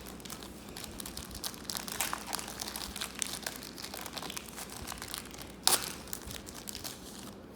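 Basketball card pack wrappers being torn open and crinkled by hand: a steady run of small crackles, with one louder sharp tear a little under six seconds in.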